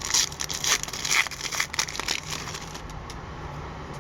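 Wrapper of a 2011-12 Upper Deck hockey card pack crinkling and tearing as it is opened by hand, in irregular crackles that die down after about two and a half seconds.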